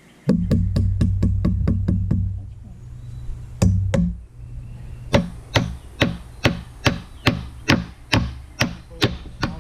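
Hammer blows struck in a steady rhythm, about two to three a second, in two runs with a short pause between them.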